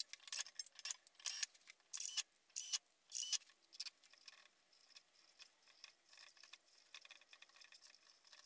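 Light metal clinks and scrapes as the wheel guard and small parts are taken off a bench grinder, about a dozen sharp clicks over the first four seconds, then soft rustling of scouring pads being handled.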